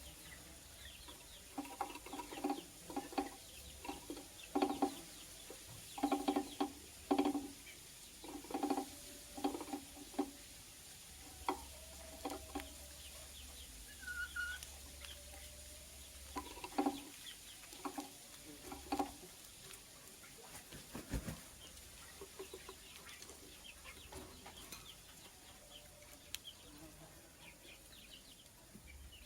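Bird calling in short, low clucking notes that come in quick clusters, thickest in the first third and again about two-thirds of the way through, with a single higher chirp about halfway.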